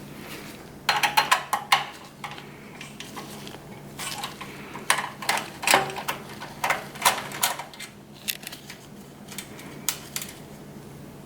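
Screwdriver turning a screw out of a desktop PC's metal case: scattered sharp metallic clicks and clinks in short clusters, with a few last ones near the end.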